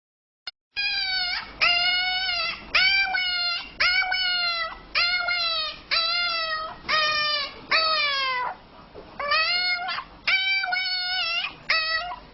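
An animal crying out over and over: about a dozen high, pitched cries in quick succession, each less than a second long and often sliding down in pitch at the end, with a short pause near two thirds of the way through.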